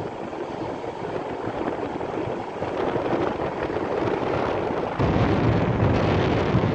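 Surf breaking and washing up the beach, with wind blowing on the microphone. About five seconds in, the wind buffeting suddenly gets much louder and deeper, a low rumble over the surf.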